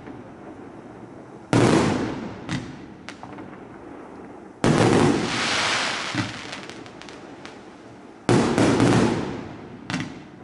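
140-shot F3 compound firework cake firing: three loud aerial bursts about three seconds apart, each dying away over a second or two, with smaller pops between them.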